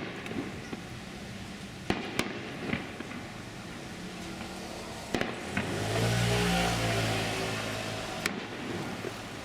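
Fireworks going off: about six sharp bangs at uneven intervals. Midway a vehicle passes close by, its hum swelling and then fading over about three seconds.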